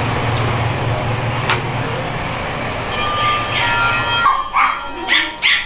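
Steady vehicle engine and traffic hum. About four seconds in it gives way to a string of short dog barks.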